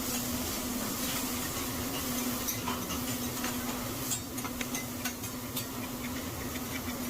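Food sizzling on a hibachi griddle, with scattered clicks and taps of metal spatulas, over a steady low hum.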